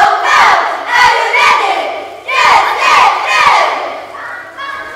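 A cheerleading squad shouting together in a gymnasium: a run of short, loud group shouts in quick succession, easing off near the end.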